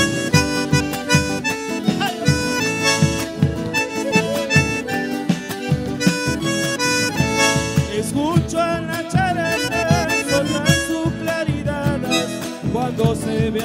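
Live band music: strummed acoustic guitars over steady drum beats, with a wavering, vibrato melody line coming in about eight seconds in.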